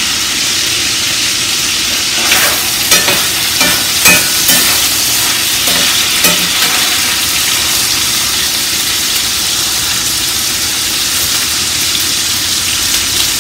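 Sliced sausage sizzling in a hot frying pan, a steady high hiss. A run of light knocks and clatters comes about two to seven seconds in as pieces go into the pan.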